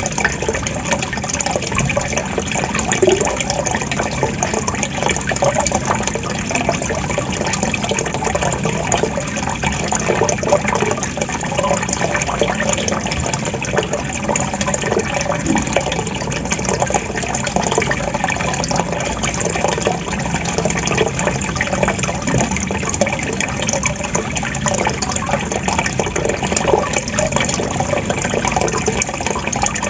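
Water trickling and gurgling steadily, with many small bubbling splashes and no pause.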